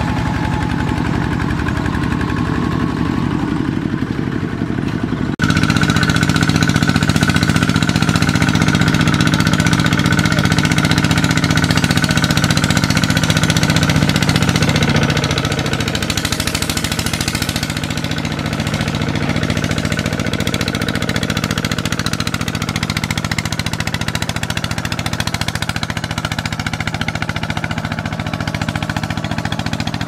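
Two-wheel walking tractor's single-cylinder diesel engine running steadily under load, towing a trailer of rice sacks through mud. The sound jumps suddenly louder about five seconds in and eases back a little after about fifteen seconds.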